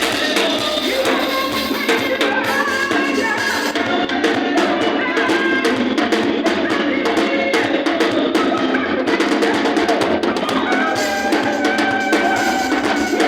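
Live band music, keyboard with drums, playing continuously. Almost no bass comes through.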